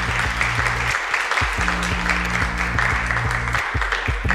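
Audience applause over electronic music with a repeating low bass line; the bass drops out briefly twice.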